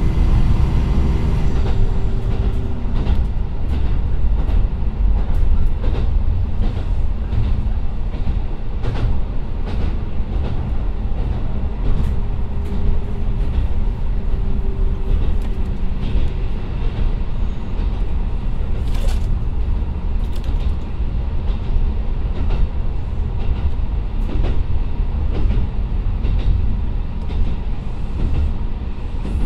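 Interior running sound of a JR Kyushu KiHa 125 diesel railcar with a DMF13HZ engine: a steady low rumble from the moving car, with the engine's tones dropping away about two seconds in. Wheel clicks over rail joints come through at irregular spacing.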